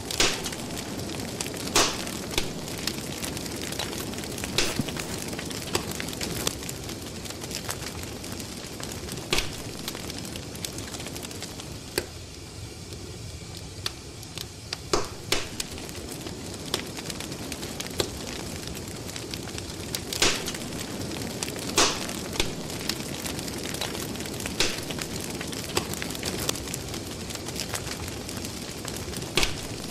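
A fire crackling: a steady hiss with sharp, irregular pops every second or few.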